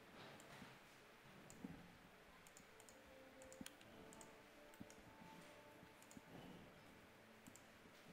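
Faint, scattered clicks of a computer mouse and keyboard, nearly silent otherwise.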